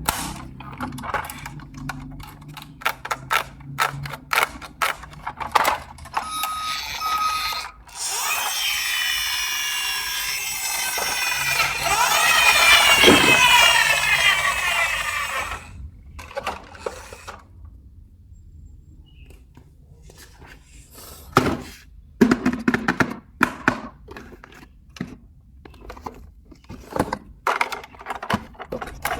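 Plastic toys clicking and clattering as they are handled, with a loud electronic toy sound effect of sweeping, sliding pitches lasting several seconds in the middle.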